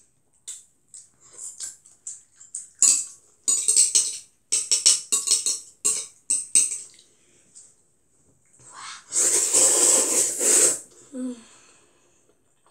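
A child eating Jjapaghetti noodles: metal chopsticks clicking against the plate among chewing and mouth smacks for the first several seconds, then a long noisy slurp of noodles about nine seconds in, lasting nearly two seconds.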